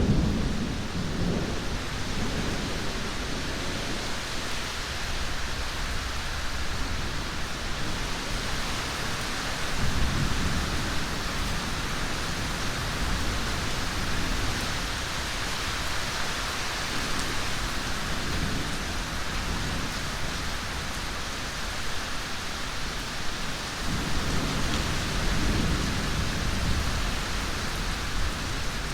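Steady heavy rain with rolling thunder. The low rumble of a clap dies away at the start, another rumble comes about a third of the way in, and more thunder rolls in near the end.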